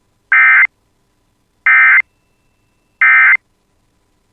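Emergency Alert System SAME data bursts: three short, loud, harsh warbling bleeps about a third of a second each, spaced about 1.3 seconds apart. They are the End of Message (NNNN) code that closes an EAS broadcast.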